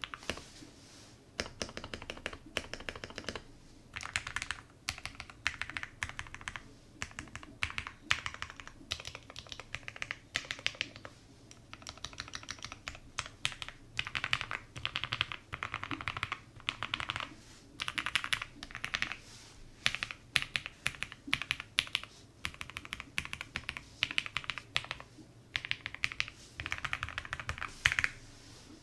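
Typing on an Owlab Jelly Epoch mechanical keyboard fitted with JWK Frank switches lubed with 205g0 and PBT keycaps: quick runs of keystrokes in short bursts, with brief pauses between them.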